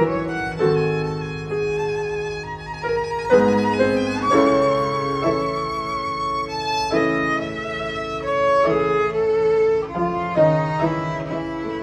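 Solo violin playing a slow melody with vibrato on the held notes. Lower sustained accompaniment notes sound underneath.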